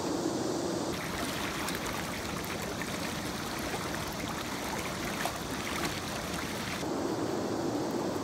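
River water rushing over a shallow riffle. About a second in it changes to closer, brighter trickling and splashing with faint clicks, and about seven seconds in it returns to the steadier, duller rush.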